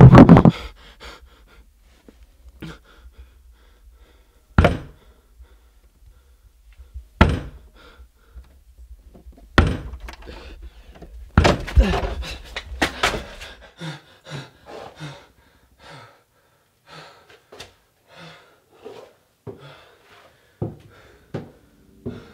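A heavy thump, then four sharp thuds or knocks a few seconds apart over a low rumble, followed by a run of short, softer sounds about every half second to second.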